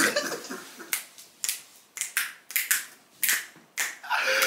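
Men laughing hard in breathy, near-voiceless bursts, about two a second.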